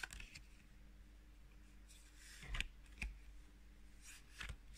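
Pokémon trading cards being flipped through by hand: a few soft flicks and taps of card stock as each card is slid off the front of the stack, over low room tone.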